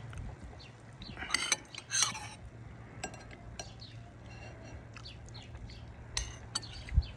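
A few faint clinks and scrapes of a metal spoon against a ceramic soup bowl, over a low steady hum.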